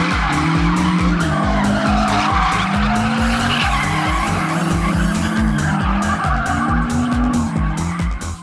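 Outro music with a fast, steady thumping beat under a stepping melodic line.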